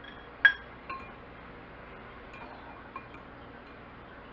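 A metal fork clinking against a glass mixing bowl: one sharp, ringing clink about half a second in, then a few lighter taps.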